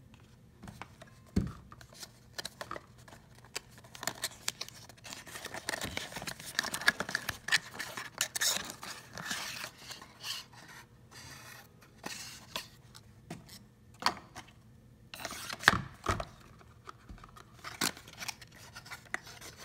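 Paperboard skincare boxes being opened and handled by hand: flaps rubbing and scraping, with scattered clicks and taps. A few louder knocks, one near the start and two close together near the end.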